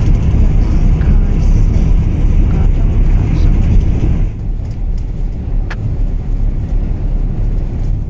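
Steady low engine and road rumble heard from inside a moving vehicle on a highway. About four seconds in, the higher hiss drops away and the low rumble carries on, with one short click near six seconds in.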